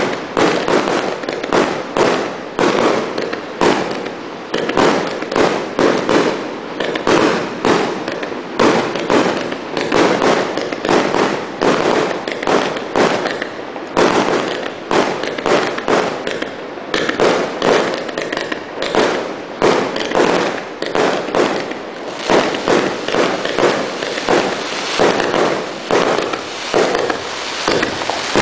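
A 338-shot consumer fireworks cake firing a rapid, unbroken volley of shots and aerial bursts, about two loud bangs a second.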